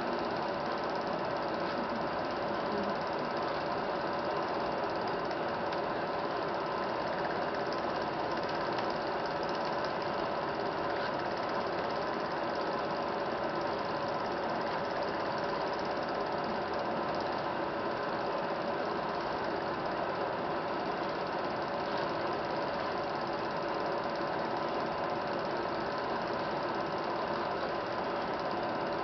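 Film projector running: a steady mechanical whirr and rattle with a faint hum, unchanging throughout.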